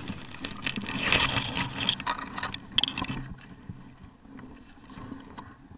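Handling noise on a gun-mounted action camera: scraping and crackling clicks against dry stubble over a low wind-like rumble, busiest in the first three seconds, then fading to a faint rustle.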